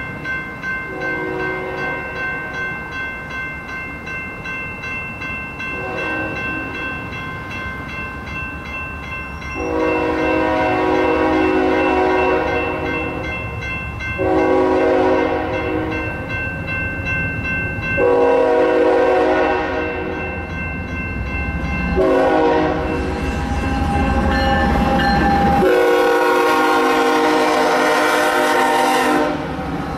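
Grade-crossing bell ringing rapidly while an approaching BNSF diesel freight locomotive sounds its multi-note air horn in a series of blasts. The blasts start about a third of the way in, the last one is held for several seconds, and a deep engine and rail rumble grows as the locomotive reaches the crossing.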